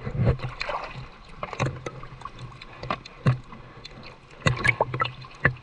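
Seawater splashing and sloshing close by, with scattered short, sharp splashes.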